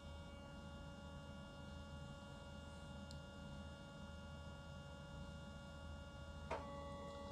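Faint steady electrical hum with several constant high whining tones over it, and a single short click about six and a half seconds in.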